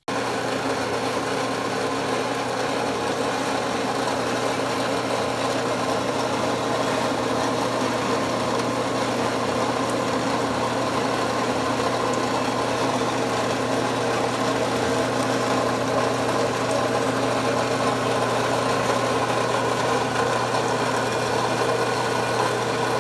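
Dayton horizontal bandsaw running, its blade cutting through a clamped metal bar under flowing coolant: a steady, even machine sound with a constant low hum.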